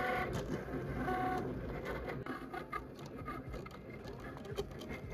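Cricut electronic cutting machine cutting a sheet of vinyl on its mat: small motors driving the carriage and rollers whine in short stop-and-go runs that shift in pitch.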